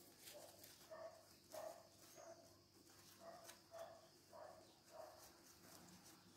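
Near silence, with a string of faint, short animal calls repeated about twice a second, which stop near the end.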